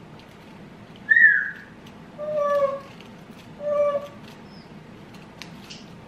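Pet bird calls: a short bright chirp, then two longer whistled notes that each slide slightly down in pitch, with a few light clicks near the end.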